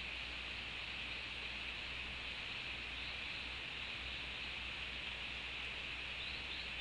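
Steady, even hiss of tropical forest ambience, with a few faint short chirps near the end.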